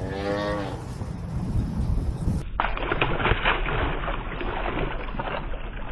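A largemouth bass splashing at the water's surface as it is released by hand, a choppy run of splashes from about two and a half seconds in. A short voice sound comes at the very start.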